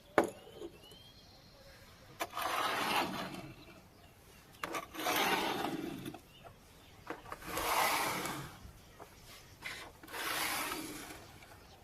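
Four rasping rubbing strokes, each lasting a second or so, with a few light clicks before the first.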